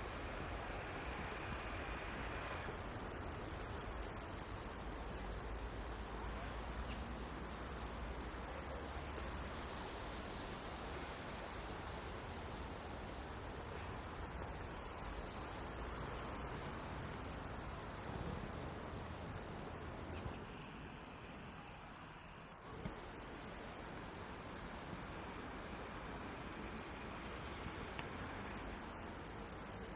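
Chorus of insects calling steadily: several fast, high-pitched pulsing trills at different pitches, with one slower chirp repeating every second or two.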